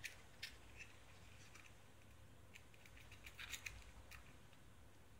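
Faint clicks and taps of small plastic mold pieces being handled and pressed together: a couple of sharp clicks near the start and a quick cluster of them about three and a half seconds in.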